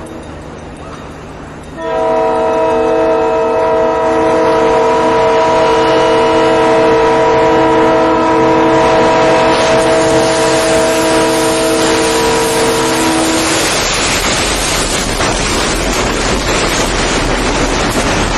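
Freight locomotive's air horn sounding one long blast, a chord of several tones that comes in loud about two seconds in. The locomotive hits a car about ten seconds in, and a rising crashing, grinding noise builds under the horn. The horn stops after about thirteen seconds, leaving the rumble and rattle of the freight train rolling past.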